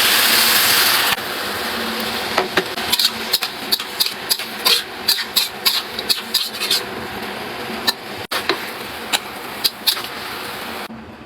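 Kitchen utensils clinking and tapping against cookware in irregular sharp strokes over a steady hiss. A louder hiss cuts off about a second in.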